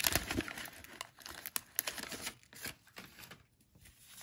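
Waxed paper wrapper of a 1989 Topps football card pack crinkling as it is handled and pulled away from the cards, with small clicks of the card stack being squared up. The crinkling is densest at the start and thins out, nearly stopping about three and a half seconds in.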